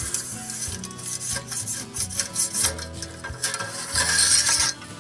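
Metal grill parts scraping, rubbing and clattering as a smoker rail is worked and pulled out on a charcoal grill, with a longer rasping scrape near the end.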